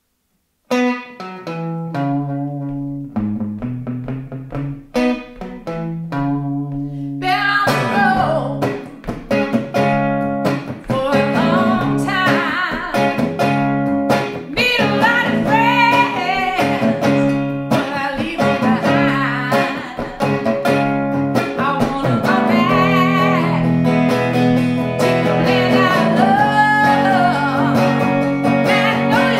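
Solo blues performance on a hollow-body electric guitar: a sparse picked riff of separate notes, then from about seven seconds in fuller, louder playing with a woman singing over it.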